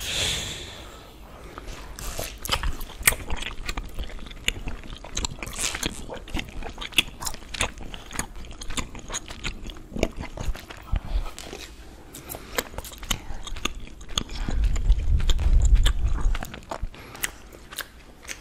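Close-miked chewing and wet mouth clicks of people eating candy, in many short, irregular smacks. About three-quarters of the way in comes a louder low rumble lasting about two seconds.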